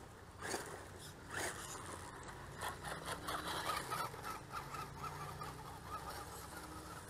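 RC monster truck driving over loose dirt, its motor whining in short, repeated throttle bursts with the rush of tyres on dirt near the start.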